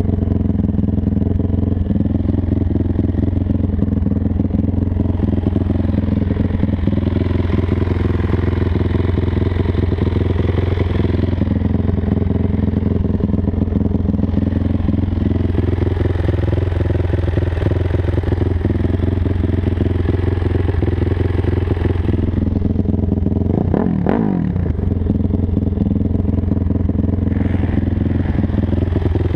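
Sport quad (ATV) engine running steadily under throttle while the quad is driven over sand. Near the end there is a brief drop and rise in engine pitch.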